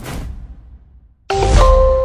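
Electronic music tails off with a short whoosh; after a brief gap, a sudden deep hit with a bright, chime-like tone rings out, a logo sting.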